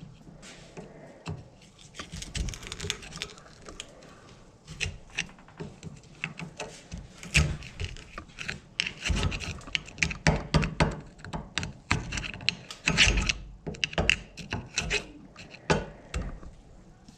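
Hand work on a hatchet head: irregular scraping and rubbing with sharp clicks and knocks, the strokes coming thicker and louder about five seconds in.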